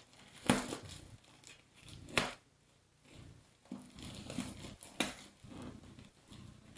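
Plastic packaging wrap crinkling and tearing as a package is cut and pulled open by hand: irregular crackles, the sharpest about half a second and two seconds in.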